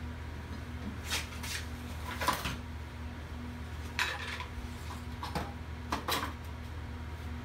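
Several light metallic clinks and clatters, about seven of them, as metal gear is handled at a welding setup, over a steady low machine hum.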